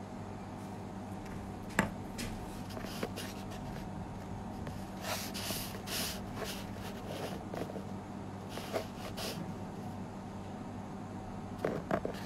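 A steady low hum of room and equipment noise, with scattered brief rustles and clicks of handling close to the microphone. The rustles cluster near the middle, and a couple of clicks come near the end.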